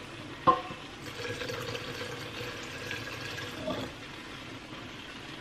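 Water poured from a saucepan into a glass blender jar, a soft steady trickle for about three seconds, after a single knock about half a second in.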